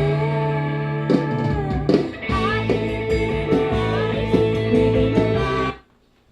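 A band playing a song with guitar and a sung melody, all stopping together in a sudden dead stop near the end.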